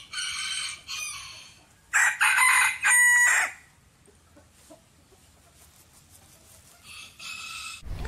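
Chicken calls: a rooster crows loudly in three parts from about two seconds in, with shorter calls at the start and another near the end.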